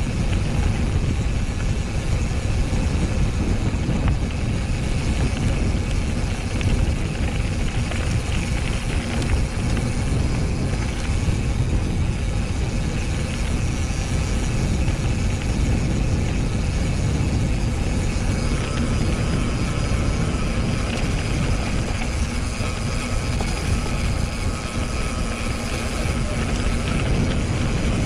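Wind buffeting an action camera's microphone while a mountain bike is ridden, mixed with tyre and trail rumble: a loud, steady, low rushing noise.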